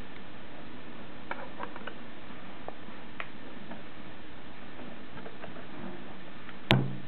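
Small metallic ticks and clicks of a screwdriver driving screws through a steel mounting bracket into a 3.5-inch hard disk, scattered and irregular, with one louder knock near the end.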